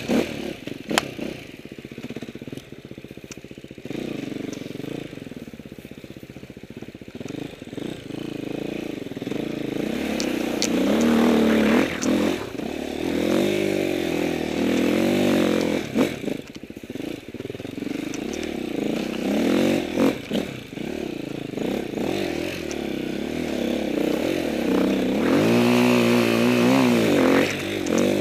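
Enduro motorcycle engine revving up and down as the bike is ridden over rough ground, lower and quieter for the first several seconds, then pulling harder from about ten seconds in. Sharp knocks and clatter from the bike come now and then.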